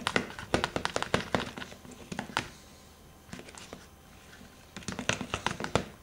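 Metal spoon stirring a thick syrup-and-flour mixture in a plastic tub, clicking and scraping against the sides in quick runs of taps. The taps ease off for a couple of seconds in the middle, then pick up again near the end.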